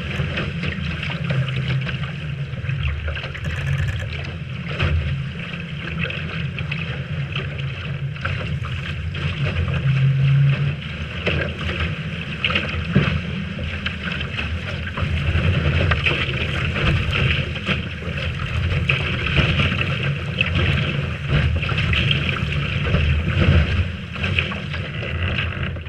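Wind buffeting the microphone in a strong breeze, a steady low rumble, with water hissing and rushing past the hull of a Lightning-class sailboat under way.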